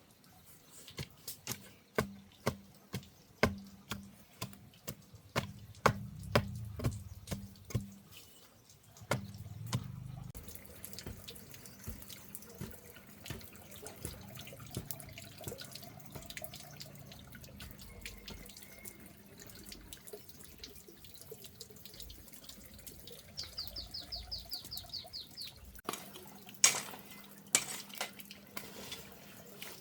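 A run of sharp knocks, about two a second, then water running steadily from a tap, with a few clicks and drips over it.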